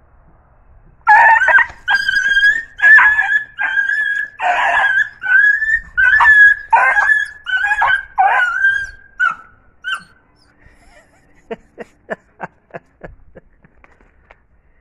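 A dog yelping in pain over and over, about a dozen high-pitched cries in some nine seconds, as a mongoose holds on to it. The cries stop about ten seconds in, and a quick run of short sharp clicks follows near the end.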